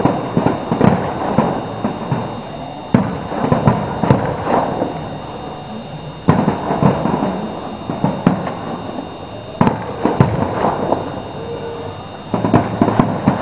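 Aerial fireworks display: a sharp bang about every three seconds, each followed by a run of quick crackling pops.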